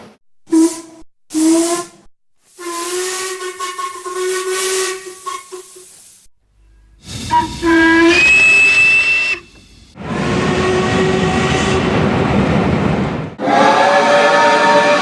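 A string of separate steam locomotive whistle blasts with the hiss of steam: two short toots, a longer blast of about three seconds, another short toot, a whistle that slides up in pitch, a stretch of hiss, and a further sustained whistle of several tones near the end.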